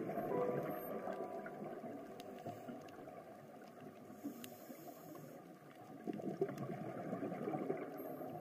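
Muffled underwater noise picked up by a camera in its waterproof housing: a low, even rushing with faint scattered clicks, swelling a little again about six seconds in.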